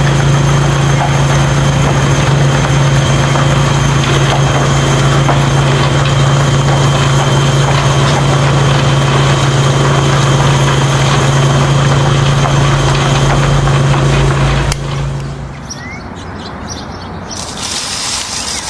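An engine running steadily at constant speed with a loud, even hum, cutting off abruptly about fifteen seconds in; a quieter hiss follows.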